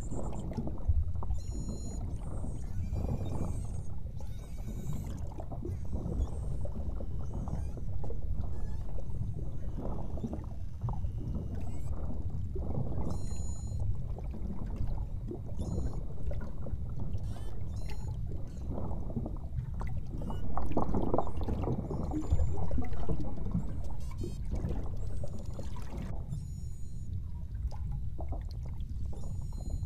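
Water noise picked up underwater: a constant low sloshing rumble with crackles, and faint high beluga whale whistles and buzzing, chirping calls coming in every few seconds.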